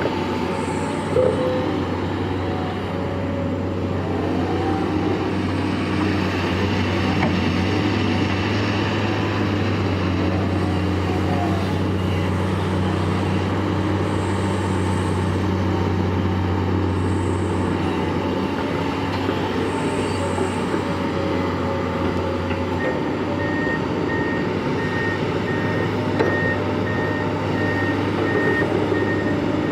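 Long-reach tracked excavator's diesel engine running steadily under work. Late on, a back-up alarm begins beeping at an even pace.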